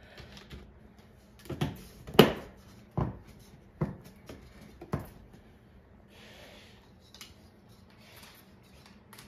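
Plastic PC case fans pressed down firmly onto push pins through a filter screen: a series of sharp plastic clicks and knocks, about six over three seconds, the loudest about two seconds in. Faint rustling of cords and handling follows.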